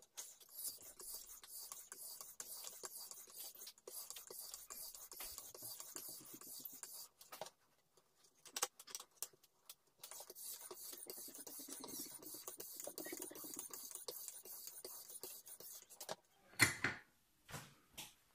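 A 5000-grit sharpening stone in the jig's holder is stroked rapidly back and forth along a kitchen knife's edge, making a high, hissing scrape. It comes in two long spells, with a pause and a couple of clicks between them. Near the end there is a sharp knock, followed by a few softer sounds.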